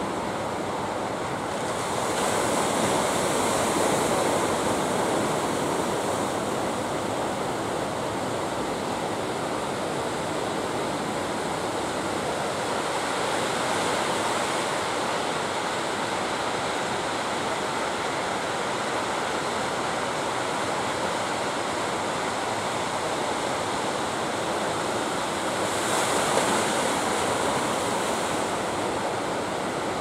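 Heavy ocean surf breaking continuously, with louder surges of crashing waves a couple of seconds in and again near the end.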